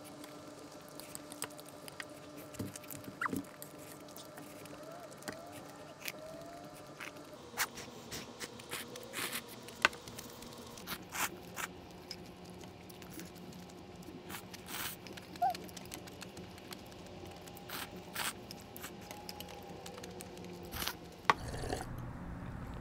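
Close-up eating sounds of instant ramyun: scattered clicks of chopsticks against a small metal bowl, with noodles slurped and chewed. About a second before the end it grows louder as she drinks milk from a plastic cup.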